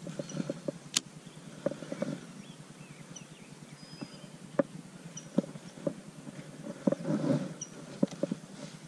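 Scattered light clicks and knocks of a baitcasting rod, reel and lure being handled on a boat deck, with a quick run of knocks about seven seconds in. Faint short high bird chirps sound now and then.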